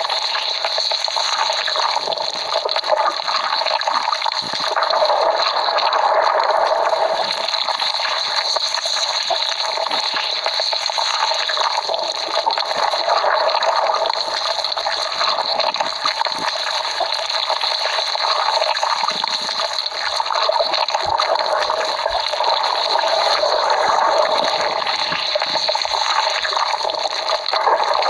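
Cartoon stomach-growling sound effect: a long, unbroken churning gurgle that swells and eases every few seconds, sitting in the middle and upper range with almost no low rumble.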